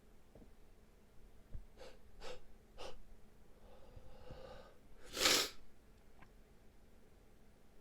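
Stifled sneezes in an allergy sneezing fit: three quick, pinched bursts about half a second apart, a drawn-in breath, then a louder stifled sneeze about five seconds in.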